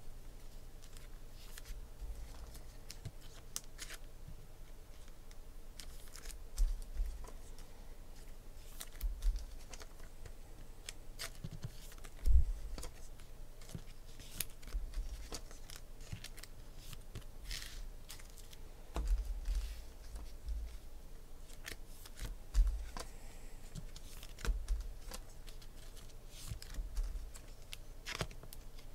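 Trading cards being handled and sorted by hand: cards flicked, slid and set down, giving scattered sharp clicks and snaps, with a few dull thumps, the loudest about twelve seconds in.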